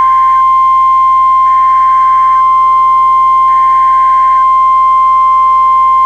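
NOAA Weather Radio warning alarm tone: one loud, steady, single-pitched beep of about 1050 Hz, held without a break. It signals that an emergency alert message follows. Three faint bursts of data tones, each about a second long and about two seconds apart, sound under it.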